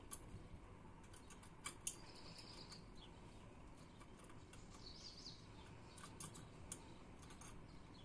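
Faint, irregular clicks and taps from a budgerigar's claws and beak on the wire cage bars as it climbs and pecks at its food, the sharpest pair a little under two seconds in. A few soft, high warbling chirps come in around two and five seconds in.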